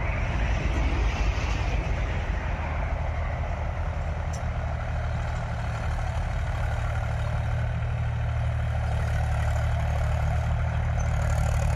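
Mahindra 275 DI tractor's diesel engine running steadily under load while driving a 7-foot rotavator through the soil.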